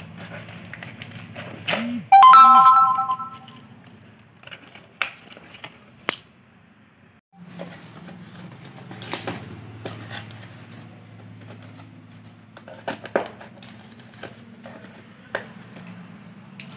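Cardboard box and packing tape being torn open by hand: repeated ripping, crackling and rustling of corrugated cardboard. About two seconds in, a loud chime of a few steady notes rings for about a second and is the loudest sound.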